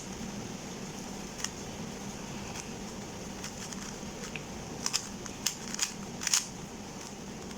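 GAN 354M magnetic 3x3 speed cube being turned during a solve: scattered sharp clicks as the layers turn and snap into place, coming more often in the second half, over a steady low hum.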